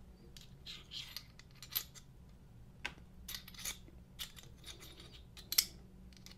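Small metal clicks and scrapes of a Smith & Wesson Bodyguard 2.0 pistol's slide and recoil spring assembly being handled and pushed together, with the sharpest click near the end. The recoil spring keeps failing to seat in the slide.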